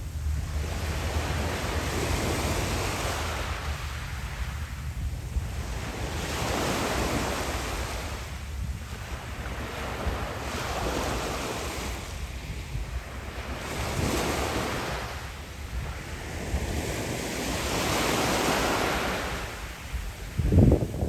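Small waves breaking and washing up a pebble beach, the surf swelling and falling back every few seconds. Wind on the microphone adds a low rumble, with a couple of louder low bumps near the end.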